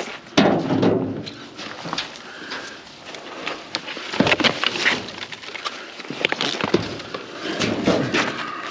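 Potted plants being pulled out of a dumpster: leaves rustling and plastic nursery pots knocking and clattering, with scattered sharp clicks and three louder rustling bursts.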